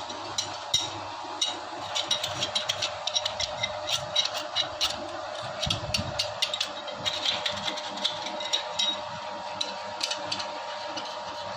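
A machine hums steadily while many sharp metallic clicks and taps come at an irregular, quick pace.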